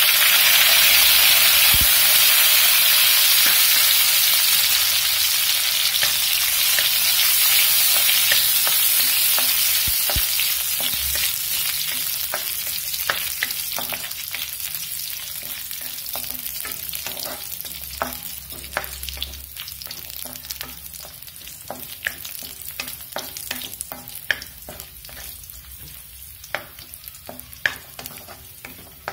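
Cashews and raisins sizzling in hot ghee in a wok. The sizzle is loudest as they go in and slowly dies down, while a spatula stirs them with light taps and scrapes against the pan that come more often in the second half.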